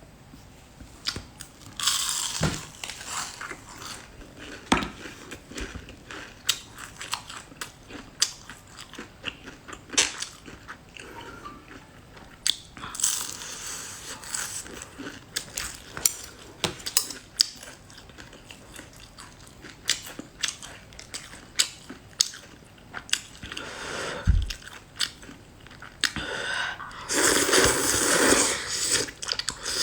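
Close-miked eating of rosé tteokbokki: chewing and biting with many sharp mouth clicks and smacks throughout. There are a few longer noisy spells, about two seconds in, about thirteen seconds in, and a louder one near the end.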